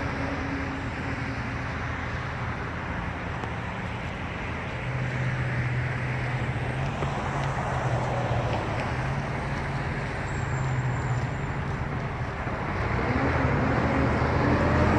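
Steady road traffic noise with a low engine hum, growing a little louder near the end.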